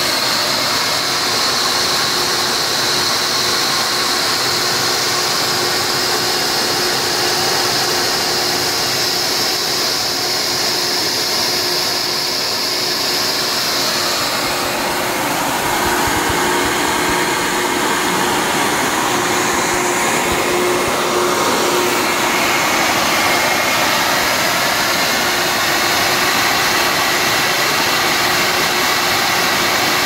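Industrial vacuum cleaner's motor running steadily with a loud rushing hiss. A high whine over it drops away about halfway through.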